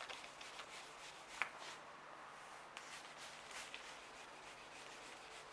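Faint rubbing of a wet sanding pad worked by hand over a car's lacquer to flatten high spots in the paint. A sharp click comes about a second and a half in, and a few lighter ticks follow later.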